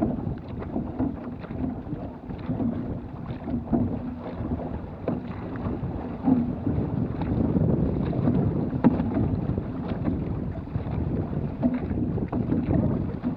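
Water rushing along a six-person outrigger canoe's hull, with the crew's paddle strokes splashing and knocking, and wind buffeting the microphone.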